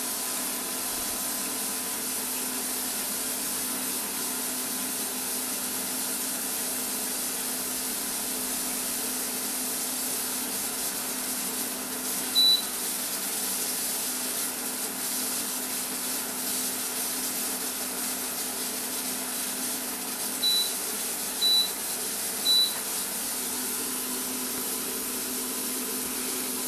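Automated pressure-cooking machine holding pressure at about 0.8 bar, giving a steady hiss with a faint hum. Four short high beeps: one about halfway, then three a second apart near the end.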